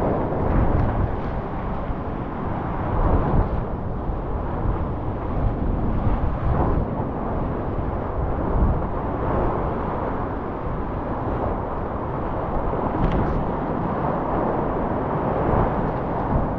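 Whitewater of a glacial river in flood rushing around a kayak in rapids: a steady low rush, with paddle strokes and spray splashing through it.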